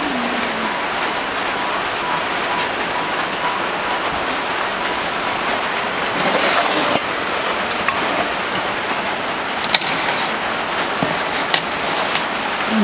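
Heavy rain falling on the roof, a steady hiss, with a few sharp clicks of utensils on steel dishes in the last few seconds.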